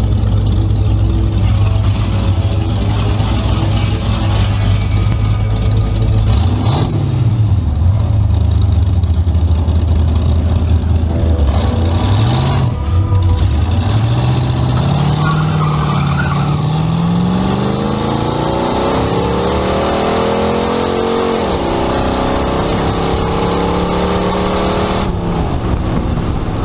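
A 1929 Ford Model A hot rod's engine, heard from inside the car: it idles with two short revs, then pulls away with its pitch rising for several seconds. About 21 seconds in the pitch drops sharply, climbs again briefly, then the engine runs steadily.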